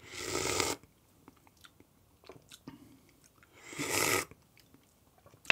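Two slurps of espresso sipped from a small glass, one at the start and one about four seconds in, with faint mouth clicks between them as the shot is tasted.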